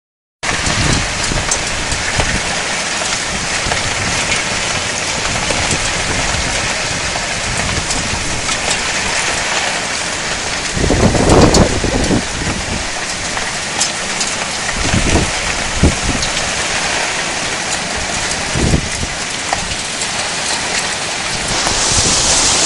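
Heavy rain pouring in a thunderstorm, a steady loud hiss. A louder low rumble swells up about halfway through, and the downpour grows heavier near the end.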